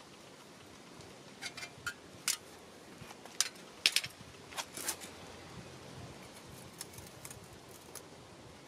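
An irregular run of sharp clicks and clinks from metal being handled, a dozen or so over a few seconds, some with a brief ring. They are loudest in the middle and fainter near the end, over a faint steady hiss.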